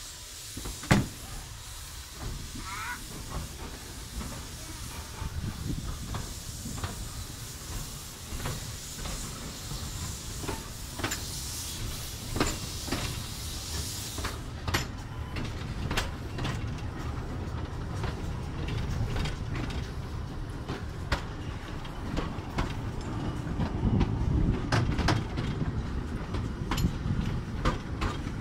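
Steam-hauled narrow-gauge train (locomotive Urskog) moving off, heard from a carriage. A steady steam hiss cuts off suddenly about halfway. Wheels click over rail joints throughout, with one sharp knock about a second in, and a low rumble grows as the train gathers speed.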